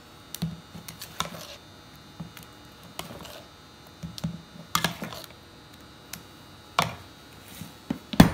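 Irregular light taps and knocks of a kitchen utensil against a mixing bowl of sweet potato pie filling, with a few louder knocks near the end.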